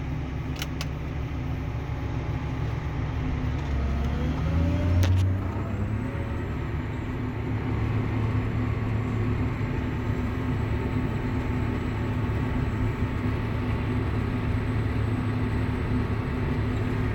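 Tractor engine running steadily under load while pulling a subsoiler; about four seconds in the engine speeds up with a rising pitch, then holds steady at the higher speed.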